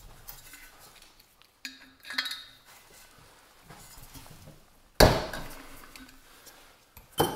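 Metal tools clinking and scraping against a steel lantern fuel tank as a check valve tool is turned to unscrew the check valve, with a few light clicks and clinks. About five seconds in comes one sharp, loud metallic clank that rings briefly, and a shorter knock follows near the end.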